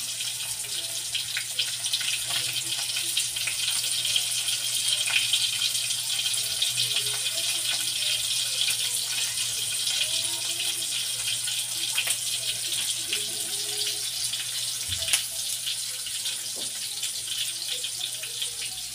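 Breaded chicken pieces deep-frying in hot oil in a wok: a steady sizzle with scattered crackles and pops, one louder pop about fifteen seconds in.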